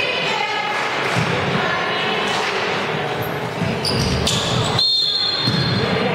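Gym crowd chatter with a basketball bouncing on the hardwood floor. Near the end a referee's whistle is blown, one steady high blast held for over a second.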